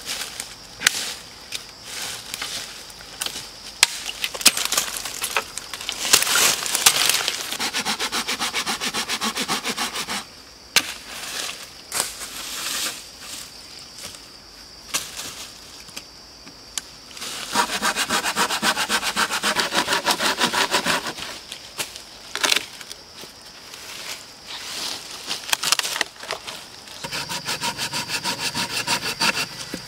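Dry twigs snapping and dead leaves crunching, then a small red-handled hand saw cutting through a dead log in three spells of quick, even strokes.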